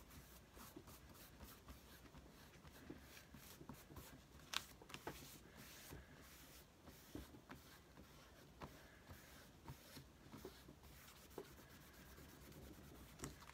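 Faint rubbing of a cloth over a freshly glued magazine cutout on paper, smoothing it down, with scattered light taps and paper rustles.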